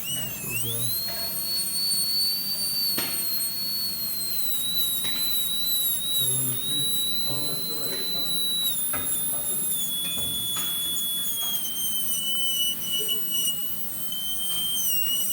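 Dental drill handpiece whining at high pitch as it cuts a class I cavity preparation in a tooth. It starts sharply, and its pitch sags slowly and dips now and then as the burr loads against the tooth.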